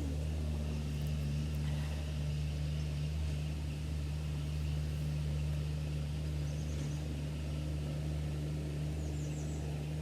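Steady low mechanical hum, unchanging throughout, with a few faint high bird chirps about two-thirds of the way in and again near the end.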